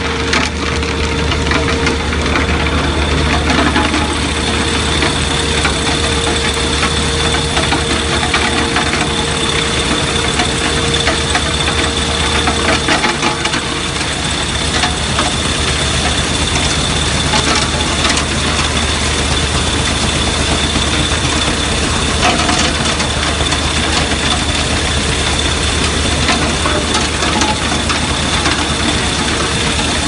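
Alluvial tin ore washing plant running: a dense, continuous clatter of wet stones and gravel over a vibrating screen and belt conveyor, over a steady low machine hum.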